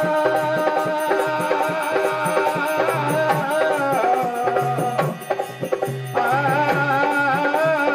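Devi Jas devotional folk song: men's voices singing over a steady dholak drum beat. The singing pauses briefly about five seconds in while the drum keeps playing, then comes back.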